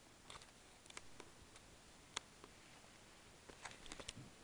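Near silence broken by a few faint, sharp clicks of handling, with a small cluster of them near the end.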